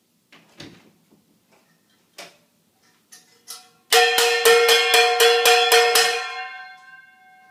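Two stainless steel cooking pots banged together rapidly, about nine ringing clangs at about four a second, the ring fading out over a second afterwards. A few soft knocks come before the clanging.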